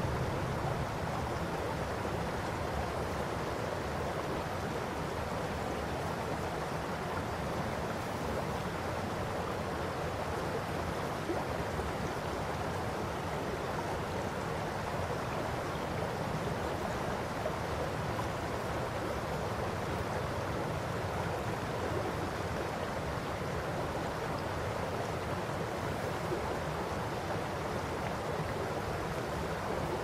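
Shallow river babbling over a stony gravel bed: a steady, even rush of flowing water.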